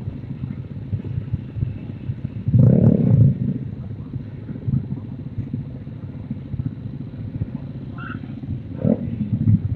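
Mini bike engines running in a low, rough rumble, swelling into a louder rev about three seconds in and again briefly near the end.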